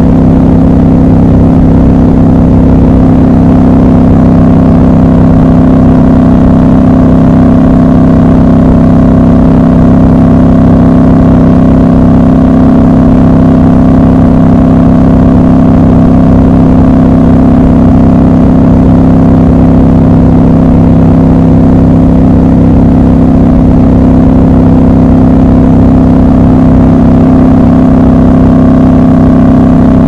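Triumph Scrambler motorcycle engine running loud and steady at a constant cruising speed, with no change in revs.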